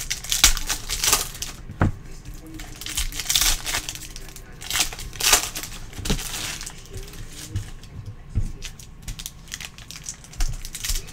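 Foil trading-card pack wrapper crinkling as it is torn open and worked off the cards by hand, in several short rustling bursts.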